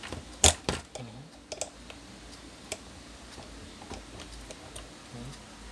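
Sharp clicks and light knocks of a stand fan's plastic motor housing and parts being handled during disassembly, the loudest click about half a second in, then a few smaller ones scattered after.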